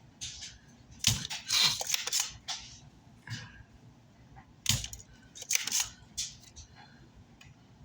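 Hand tools working on a burnt amplifier circuit board: an irregular run of sharp clicks and short scrapes, some coming in quick pairs, with quiet gaps between.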